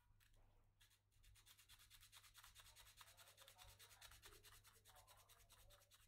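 Faint hand-sanding of a hulusi's calabash gourd at its neck: rapid, even back-and-forth abrasive strokes, about eight a second, starting about a second in.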